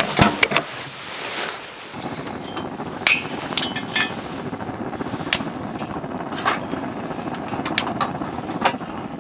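Firewood burning in a bowl-shaped fire pit, crackling with irregular sharp pops over a steady rush. A quick cluster of knocks at the start as the burning wood is poked.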